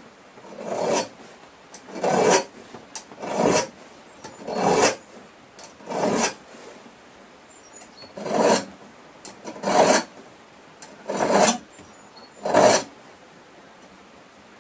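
Small flat file rasping across the teeth of a two-man crosscut saw blade as they are sharpened: nine slow strokes, about one every second and a half, with a short pause midway and the last stroke near the end.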